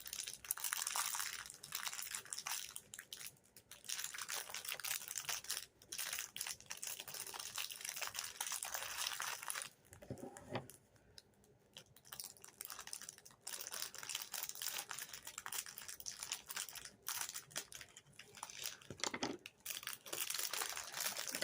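Packaging crinkling and rustling as it is handled, in stretches of a few seconds with a short lull about ten seconds in.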